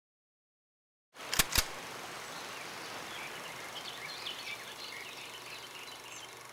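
Two sharp clicks in quick succession, then a steady hiss with faint, scattered high chirps.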